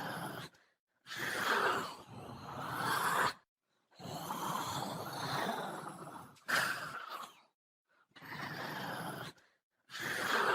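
Zombie sound effect: a run of rasping, breathy groans and moans, each one to two and a half seconds long, some swelling in pitch, with short gaps between them.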